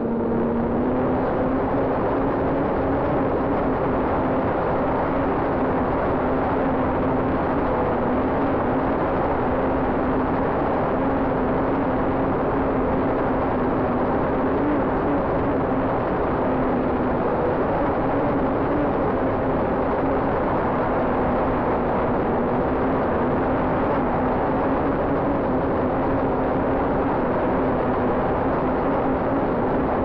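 Drone's motors and propellers humming steadily, a whine whose pitch wavers slightly, over a rush of wind noise.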